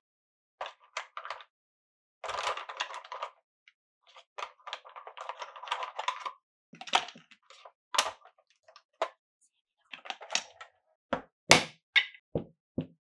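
Marbles rolling and clacking through a wooden marble run. There are two longer stretches of dense rattling rolling, about two seconds in and from about four to six seconds in, then a string of separate sharp clicks and knocks as marbles drop and strike the wooden blocks. The loudest knocks come near the end.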